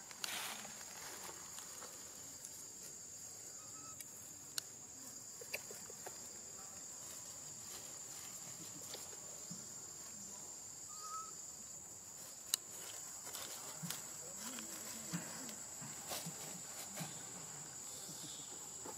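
Steady, high-pitched insect drone, with a few sharp clicks standing out above it.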